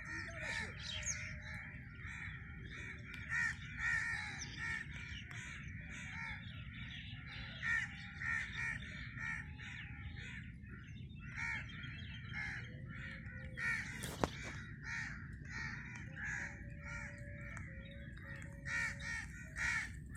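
A flock of birds calling continuously: a dense chatter of short, overlapping calls with no pause, over a steady low background noise. There is a single sharp click a little past the middle.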